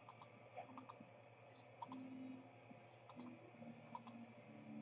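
Faint computer mouse clicks, in quick pairs, about five times.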